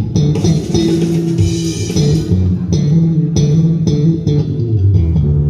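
Bass guitar playing a solo: a steady run of low plucked notes, with sharp bright attacks between them.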